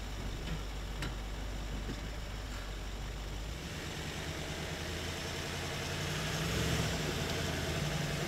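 Range Rover L322's TDV8 diesel engine running at low revs as the 4x4 crawls up a grassy slope. The revs pick up about halfway through and the engine grows louder near the end.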